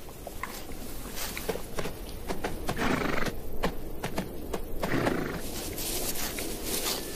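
Namib Desert horses grazing: repeated crisp crunches and rips as dry bushman grass is cropped and chewed. It gets louder about three and five seconds in.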